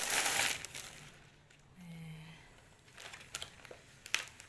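Plastic balloon packaging crinkling as it is handled and opened, loudest in the first second, then softer rustles and crackles.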